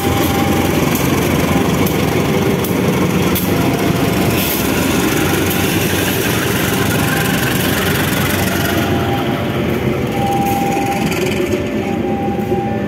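CC 204 diesel-electric shunting locomotive passing close with its engine running, followed by stainless-steel passenger coaches rolling past on the rails. Short, steady squeals rise from the wheels near the end.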